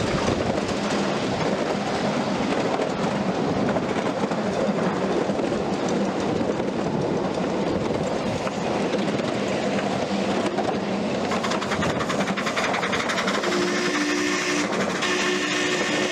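A 7.5-inch gauge ride-on miniature train running on its track, with the steady rolling of its wheels on the rails. Near the end a low steady tone comes and goes in short stretches.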